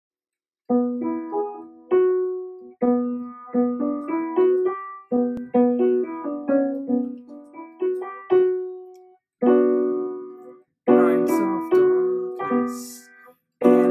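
Piano playing a slow melodic passage of chords and single notes, each note ringing and dying away, in phrases broken by short gaps.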